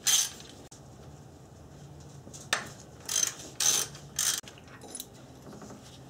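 Ratchet wrench clicking in several short bursts, backing out the just-loosened bolt of a drive-belt idler pulley on a Toyota 1GR-FE V6.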